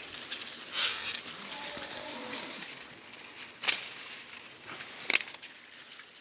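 Dry corn husks crackling and rustling as an ear of waxy corn is handled and peeled open, with two sharp snaps in the second half.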